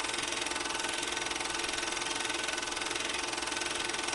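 A steady, rapid mechanical clatter of many even ticks a second, with a faint steady whine running through it.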